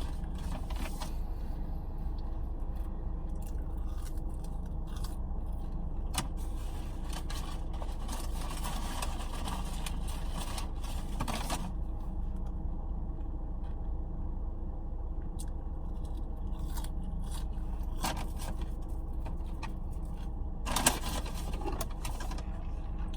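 Steady low hum of a car idling, heard from inside the cabin, with scattered small rustles and clicks over it and one sharp click about 21 seconds in.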